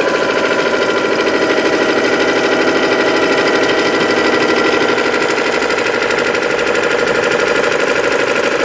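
Small DC electric motor and its drive running steadily, spinning the flywheel of a scale model engine: an even whirring buzz with a fast, regular pulse.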